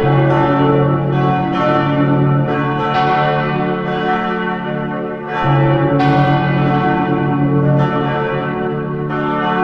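Several church bells pealing, their strikes following one another quickly so that the ringing overlaps. A deep bell comes in at the start and again about halfway, under the higher bells.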